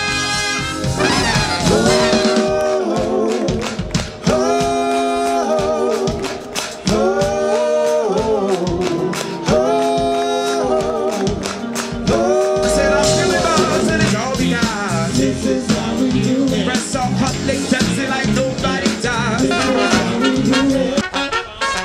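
Live brass funk band, the horn players singing in harmony: a run of held sung chords, each about a second and a half long with short breaks, over drum strokes. From about halfway the full band plays on with drums and bass.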